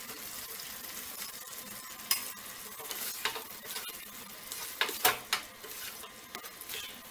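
Fried fish pieces sizzling in thick Manchurian sauce in a non-stick pan, stirred and tossed with a spatula that knocks and scrapes against the pan a few times, loudest about five seconds in.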